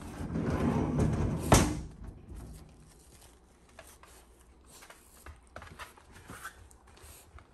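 Close rustling and handling noise with a single sharp knock about a second and a half in, then faint rustles and light clicks as a hand strokes a Shiba Inu's fur.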